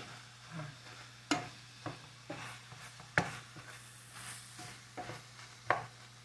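A wooden spatula stirs and turns ground pork and rice in a nonstick frying pan, giving irregular knocks and scrapes against the pan about once a second over a faint sizzle. The rice is being mixed into the cooked pork.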